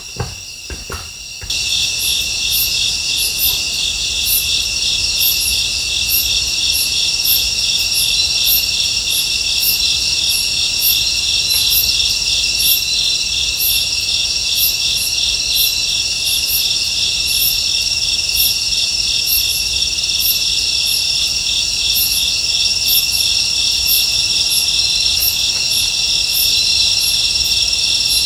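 Night insect chorus of crickets, a loud steady trill with a higher chirp repeating regularly about one and a half times a second. A few soft knocks come first, then the chorus comes in suddenly about a second and a half in.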